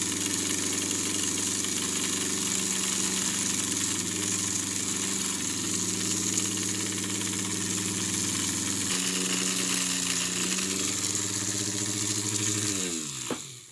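Lionel 221 locomotive's electric motor running on bench power with its freshly greased gears and drive wheels spinning free, a steady pitched whir. The pitch drops a little about two-thirds through, and near the end it winds down, falling in pitch, and stops.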